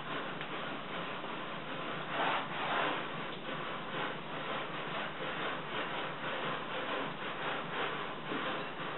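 Spatula stirring and scraping sticky bread dough in a glass mixing bowl, a steady run of soft rubbing strokes, a little louder about two seconds in, as extra flour is worked into the autolysed flour-and-water dough.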